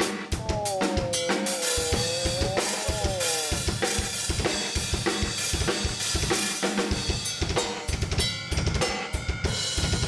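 Fast drum-kit solo: rapid snare and tom strokes over double-pedal bass drum, with cymbal crashes. A wavering held note sounds over the drumming for about three seconds near the start.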